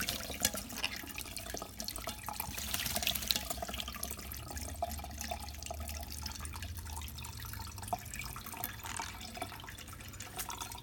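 Water running from a tap into a sink, with scattered small splashes and drips as a pet bird bathes in it.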